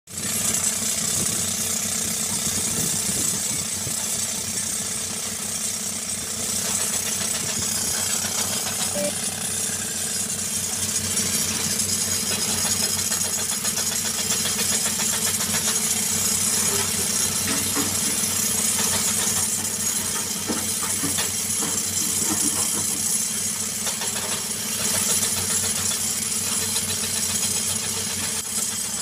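Diesel engine running steadily, with the fast hammering of a pneumatic rock drill working the quarry face.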